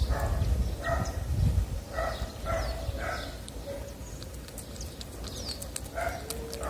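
Tabby cat eating wet cat food right at the microphone: wet chewing and smacking in short repeated bursts, thinning out in the middle, with quick clicks near the end.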